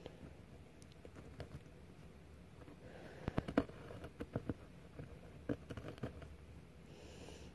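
Pen on paper while drawing: faint scratching with a quick run of small sharp ticks about three seconds in, and a few more around six seconds.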